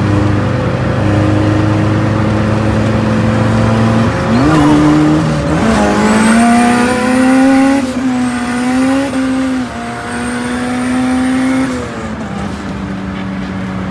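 Car engine running hard at speed: it cruises steadily, the revs jump about four seconds in, then climb under hard acceleration with brief dips at gear changes and a thin high whine over the top, and the engine eases off near the end.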